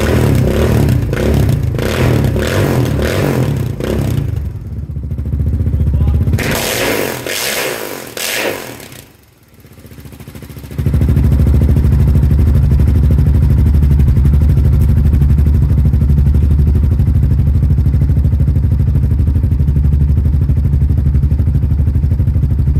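Honda TRX700XX's 686 cc single-cylinder four-stroke engine through a Sparks Racing stainless full exhaust with its original, unbaffled tip. It is blipped repeatedly for the first few seconds, then given one longer rev, drops away briefly about nine seconds in, and then runs steadily at idle, loud and deep.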